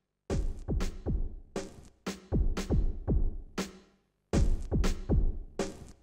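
Electronic background music with a steady drum-machine beat, dropping out briefly twice.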